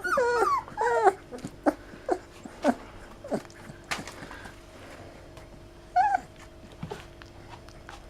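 Young lurcher puppies whimpering and squeaking: a quick run of high, wavering whines in the first second, then a few short squeaks and one more whine about six seconds in.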